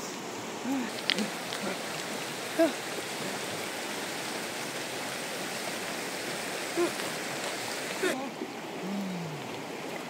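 Shallow river running over a gravel bed, a steady rushing, with a few short voice sounds scattered through.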